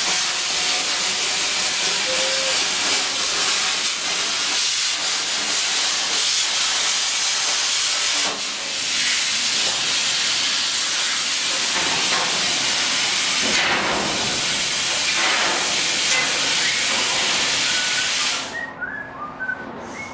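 Cutting torch burning through steel plate: a loud, steady hiss that dips briefly about eight and about fourteen seconds in, then cuts off about eighteen seconds in.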